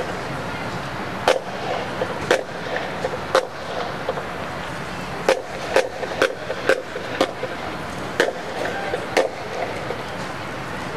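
Sharp clicks or taps, irregularly spaced and often about a second apart, over a steady background.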